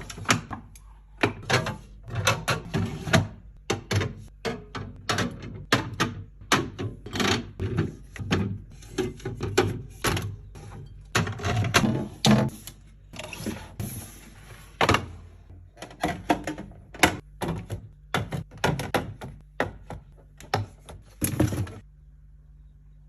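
Items and containers being handled and set down while a refrigerator is restocked: a quick, irregular run of knocks, clicks and taps with some rustling, which stops about a second before the end.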